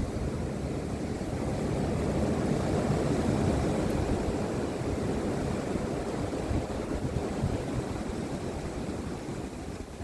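Strong winter storm wind gusting and buffeting the microphone with a low rumble; it builds about two seconds in and slowly eases toward the end.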